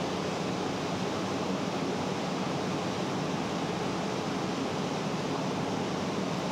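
Steady, even hiss of background noise picked up by the phone's microphone, with no distinct events.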